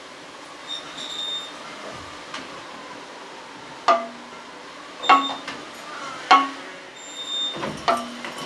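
Sparse struck percussion from the theatre's handmade instruments: four sharp strikes about a second apart, each leaving a short ringing pitched tone.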